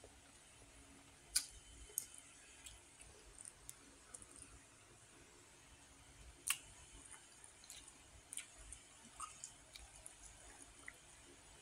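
Faint eating sounds: scattered sharp clicks of wooden chopsticks and a spoon against a ceramic bowl of noodles and squid, the loudest about a second and a half in and again about six and a half seconds in, with soft wet squishing between them.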